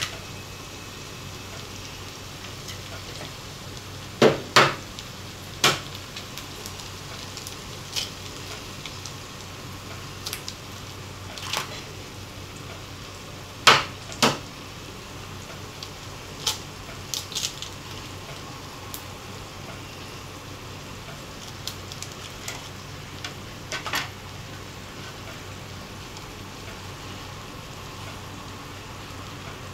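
Eggs and diced potato and ham frying in a pan: a steady sizzle with scattered sharp pops and clicks, the loudest coming in pairs about four and fourteen seconds in.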